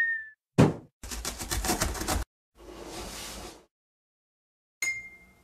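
Cartoon sound effects for an animated intro: a quick falling swoop that ends in a thump, then a fast rattle lasting about a second, a softer whoosh, and a short bright ding near the end that rings out.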